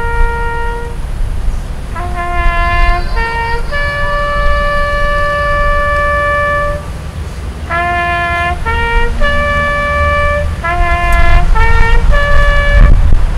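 A lone bugle call on a brass horn: short notes and long held notes, all on the few open tones of a bugle, over a low rumble that grows near the end.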